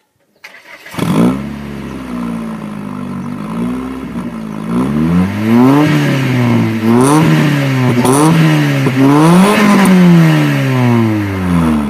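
1998 Mitsubishi Eclipse GS's four-cylinder engine heard at the tailpipe of its stainless header-back exhaust, with the silencer insert in. It idles, then is revved several times, the pitch rising and falling back with each blip.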